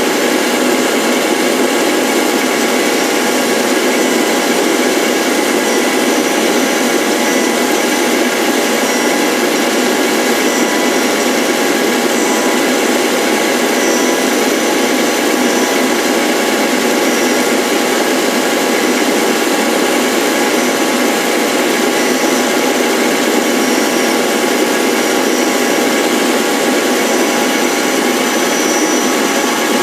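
Power-tool motor driving the cutter on a rose engine lathe, running steadily with several constant tones as it cuts a shallow pattern into the end of a wooden disc.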